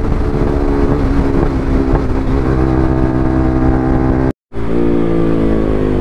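Motorcycle engine running steadily at cruising speed. About four seconds in the sound cuts out for a moment, then the engine comes back with its pitch slowly falling as the bike slows.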